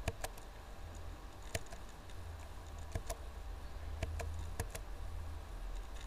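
Computer mouse clicking, about eight short sharp clicks at uneven intervals, over a low steady hum.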